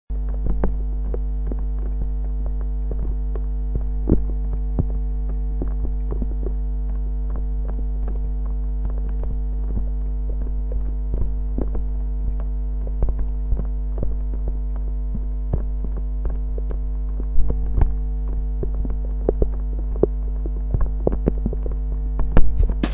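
A steady low hum, like mains or electrical hum, with many short clicks scattered through it.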